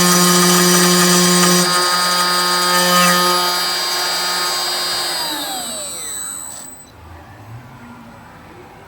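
Spindle motor of an aluminium-profile CNC drilling and milling machine running at speed with a steady whine, then spinning down about five seconds in, its whine falling in pitch and dying away by about seven seconds.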